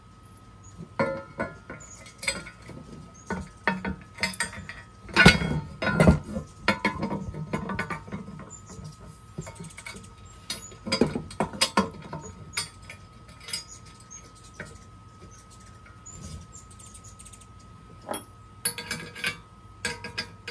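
Small metal hardware being handled and fitted by hand: bolts, washers and nuts clinking against a painted steel sharpener bracket and on a wooden tabletop. The clinks come at irregular intervals, with a few heavier knocks, the loudest about five seconds in.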